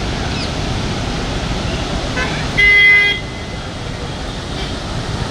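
A vehicle horn honks once for about half a second, midway, over a steady rushing noise.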